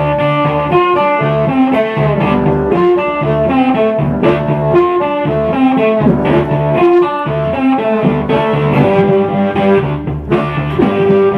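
Blues harmonica playing long held notes that bend and slide, over a repeating low guitar riff.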